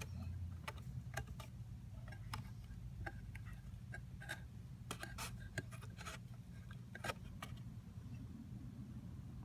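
Scattered light clicks and taps, irregularly spaced, over a steady low hum.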